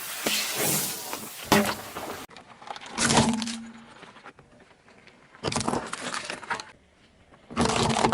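Crunching and cracking as a car tyre rolls over and crushes objects, in several separate bursts. There is a sharp pop about one and a half seconds in.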